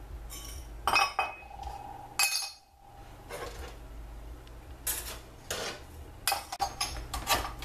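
Steel parts of a TH400 automatic transmission clutch drum clinking and clanking against each other and the steel workbench as they are lifted off and fitted back on. The clinks come one at a time, one of them ringing on briefly about a second in, then several more close together in the last few seconds.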